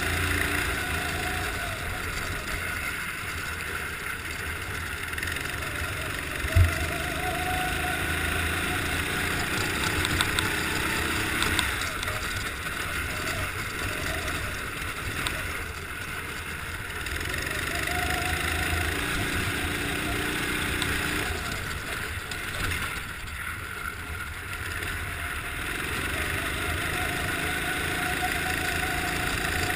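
Go-kart engine heard from on board, its note rising as it accelerates and falling as it lifts off, again and again through the laps. A sharp thump about six and a half seconds in is the loudest sound.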